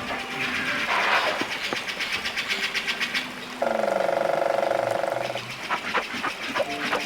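An animal calling: a fast pulsing rattle or trill for about three seconds, then a single buzzing, nasal call held for about a second and a half, followed by a few short clicks.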